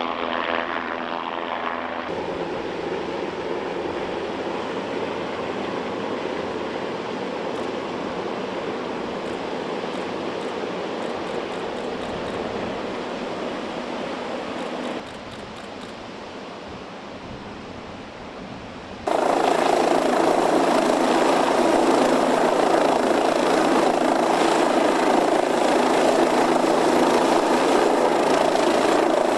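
MQ-8C Fire Scout unmanned helicopter in flight: steady turbine and rotor noise, in several segments that change abruptly. It drops quieter about fifteen seconds in and becomes markedly louder a few seconds later.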